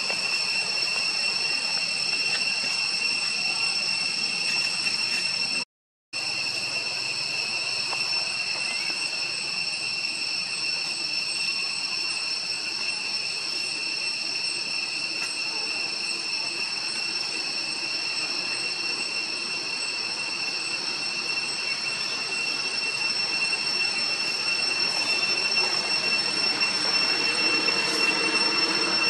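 Steady high-pitched insect drone, several shrill tones held without change, breaking off for a moment about six seconds in.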